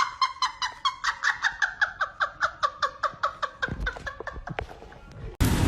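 An animal's rapid chattering call: a quick, even run of short high chirps, about six a second, slowing and fading out. Near the end it cuts suddenly to a loud rushing noise.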